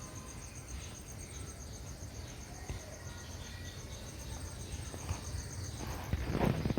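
Insects, crickets by the sound of it, trilling in a rapid, evenly pulsing high chirp over a steady low outdoor rumble. Near the end a louder patch of short rustling knocks comes in.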